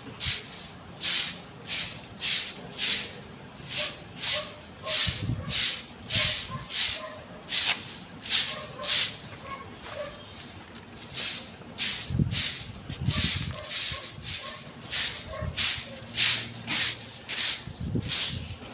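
Stiff coconut-rib stick broom (walis tingting) sweeping hedge clippings, in brisk, even, scratchy strokes a little under two a second.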